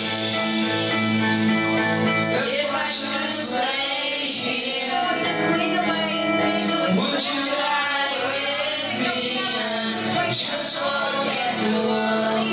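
Rock-style backing music with singing over it; a boy sings into a handheld microphone in parts, the voice wavering over the accompaniment.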